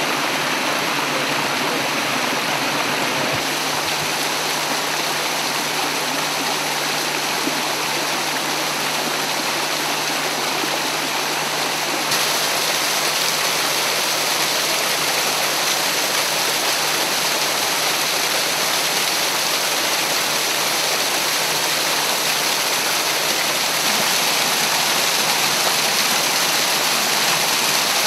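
Stream water cascading over rocks: a steady, dense rush of falling water that grows slightly louder twice along the way.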